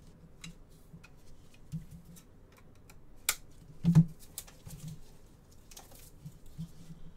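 Gloved hands handling trading cards and plastic card cases on a tabletop: scattered light clicks and taps, with one louder knock about four seconds in.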